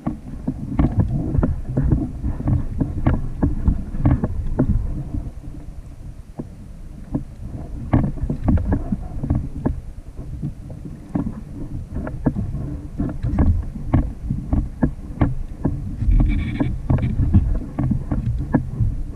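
Water sloshing and slapping against a plastic sit-on-top kayak hull at sea, with wind buffeting the microphone and frequent short knocks and taps. A brief squeak about three-quarters of the way through.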